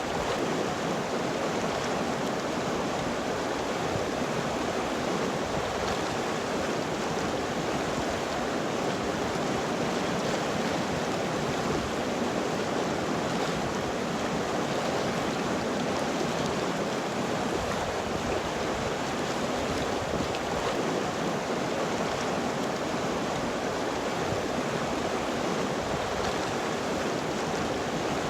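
River water flowing and rushing over rocks, a steady even rush without breaks.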